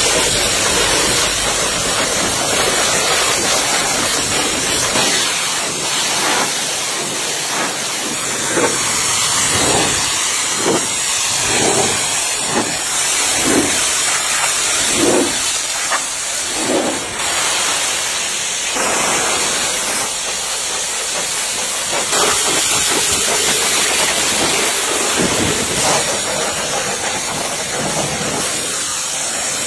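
Steady loud hiss, like compressed air or spray from a blasting or spraying tool, with a run of short pitched blips about one a second in the middle.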